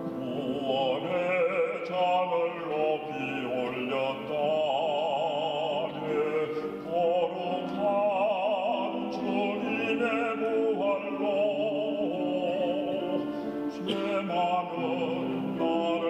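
Background music: a classical operatic voice singing held notes with wide vibrato over a steady accompaniment.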